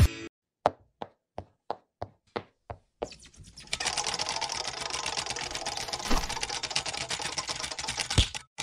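Animated outro sound effects: a string of sharp single ticks, about three a second, then, from about three seconds in, a fast continuous clatter lasting about five seconds, with a couple of louder hits in it.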